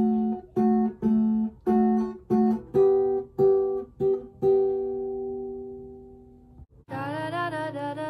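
Acoustic guitar with a capo, fingerpicked on two strings, plucking notes about twice a second to close the song. It ends on a held note that rings out and fades away. Near the end a different piece of music starts, with sustained notes that bend in pitch.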